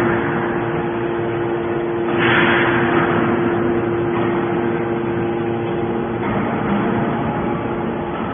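Hydraulic can baler running: a steady motor-and-pump hum, with a louder rushing hiss that swells about two seconds in and slowly fades.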